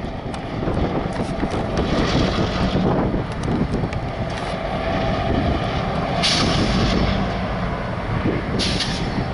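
Diesel freight locomotives of a CN train (CN 4790 and GMTX 2274) running with a steady low rumble, wind buffeting the microphone. Two short hissing bursts come about six and nine seconds in.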